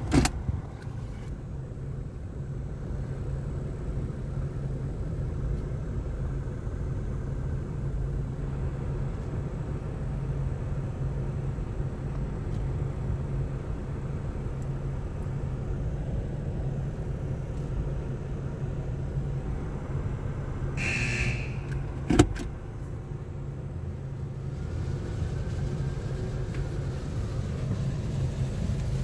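Steady low hum of automatic car wash equipment, heard from inside a car's cabin. About three quarters of the way through there is a brief hiss, then a single sharp knock.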